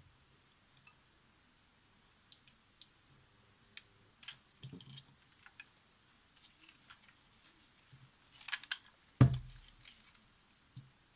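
Small hand tools clicking and scraping against the SX-70 camera's flash legs and circuit board, a scatter of light ticks and scratches, with one louder knock a little after nine seconds in.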